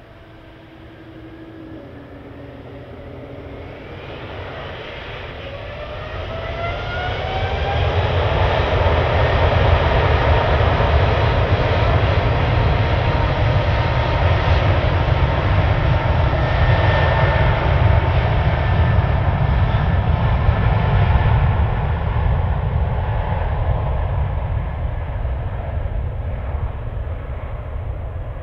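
Boeing 777 twin turbofan engines spooling up to takeoff power with a rising whine over the first several seconds, then a loud steady roar with a deep rumble as the jet accelerates on its takeoff roll. The roar eases a little near the end as the aircraft pulls away.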